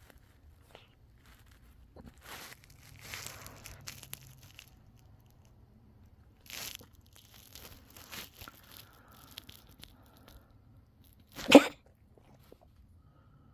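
A pet coughing: a few soft hacking sounds, then one loud, sharp cough about eleven and a half seconds in.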